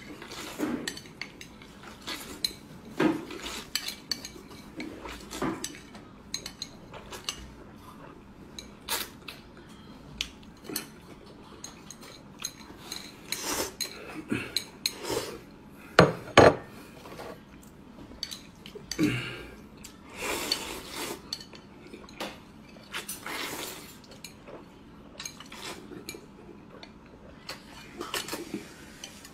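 Chopsticks clicking and scraping against a ceramic bowl while a man eats stir-fried spicy fire noodles fast, with chewing and mouth noises between the clicks. One sharp knock about halfway through is the loudest sound.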